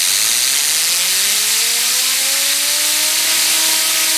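Compressed air from an air-compressor blow gun blasting onto a handheld fidget spinner: a loud, steady hiss, with the spinner's whine rising steadily in pitch as it spins up.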